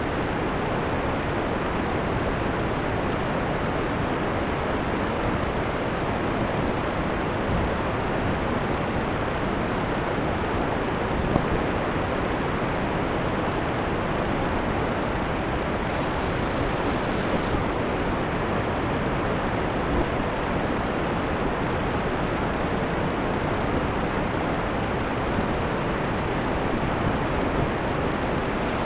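Steady, even static hiss with no motor whine or pitch changes in it, and a single faint tick about eleven seconds in.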